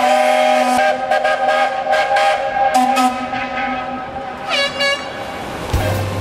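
Ships' steam whistles and horns sounding together in long overlapping blasts at several pitches, as a harbour salute to a sailing ship. About four and a half seconds in, one whistle slides upward in pitch.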